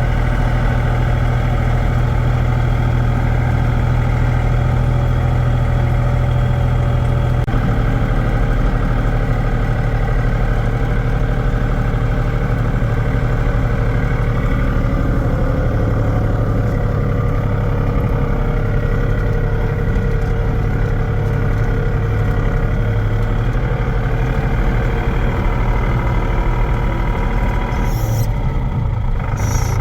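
Heavy machinery running steadily with a low engine-like hum, its pitch shifting about seven seconds in.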